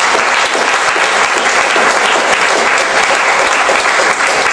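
Audience applauding: many people clapping together, steady and loud.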